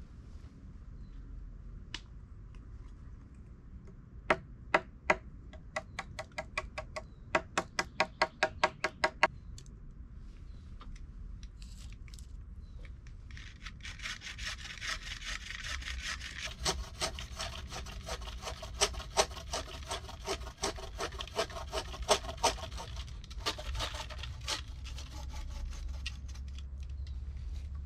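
Hand saw cutting through a wooden pole: a run of quick, even strokes starting about four seconds in, then a longer stretch of steadier sawing from about halfway through until near the end.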